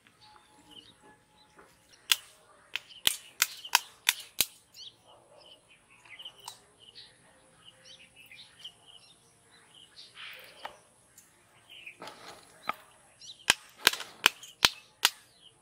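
Two quick runs of sharp clicks, several in a row a couple of seconds in and again near the end, with small birds chirping in between.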